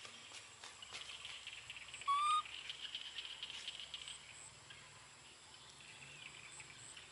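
A baby macaque gives one short, slightly rising coo about two seconds in, the loudest sound here. Beneath it runs a faint, steady high buzz of insects.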